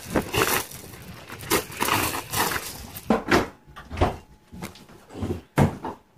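Quick running footsteps crunching on gravel, then a few knocks and bumps as a glass door is pushed open.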